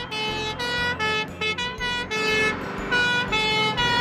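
Fire engine siren sounding in a two-tone pattern, switching pitch a few times a second.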